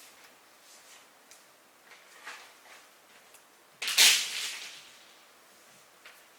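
Movement sounds of a performer on a stage with no music: faint scattered rustles and taps, then a sudden loud swishing scrape about four seconds in that dies away over about a second.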